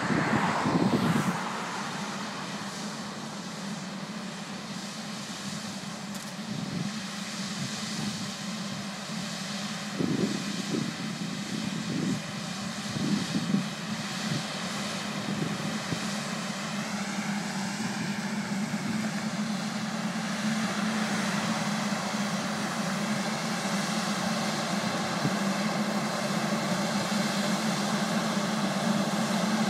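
Tractor pulling a C&N Bug Vac insect vacuum, its engine and vacuum fans running as a steady drone that grows louder as the rig approaches. A few brief low bumps come about ten to fourteen seconds in.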